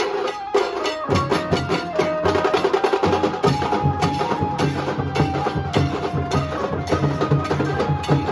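Nasik dhol band music: dense, driving dhol and tasha drumming with a held, wavering melody line on top. The big low drums drop out for about a second near the start, then come back in.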